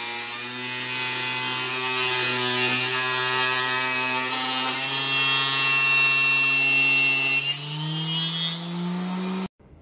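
Small hobby table saw running as a thin sheet is fed through its circular blade, a steady motor hum with a rising pitch near the end, cutting off suddenly just before the end.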